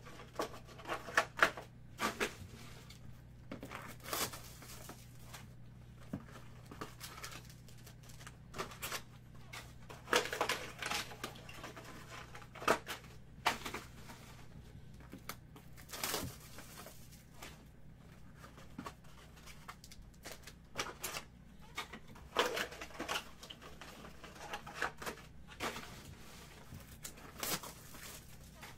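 Cardboard card boxes and foil-wrapped card packs being handled and opened: irregular crinkling, tearing and small taps and clicks, with a faint steady low hum underneath.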